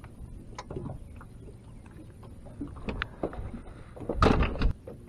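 Small knocks and handling noises aboard a fishing boat, with a louder scuffing bump about four seconds in, over a low rumble.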